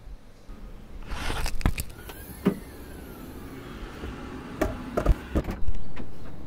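Handling a car's tailgate and door: a run of sharp clicks and knocks, then a heavy thud about three-quarters of the way in that fades away slowly.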